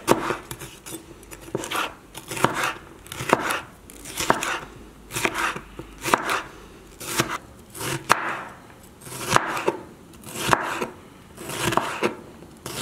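A large kitchen knife cutting a red bell pepper on a wooden cutting board, first into strips, then into small dice: the blade knocks on the board about once a second, with softer cutting sounds through the pepper between the knocks.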